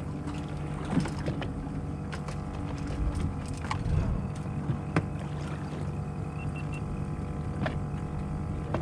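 A fishing boat's engine idling with a steady low hum, with a few sharp knocks and clicks from gear on board.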